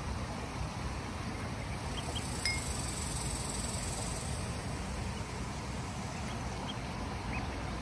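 Steady low outdoor noise, like wind on the microphone, with a few faint, short high peeps from ducklings: a couple about two seconds in, one in the middle and one near the end.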